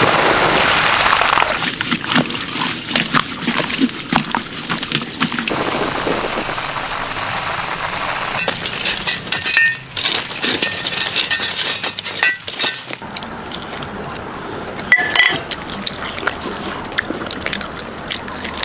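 Water pouring and splashing over raw pig liver in a wicker basket. It is followed by a string of quick, sharp clicks, clinks and crackles as charcoal-roasted liver is dug out of the embers with hoes.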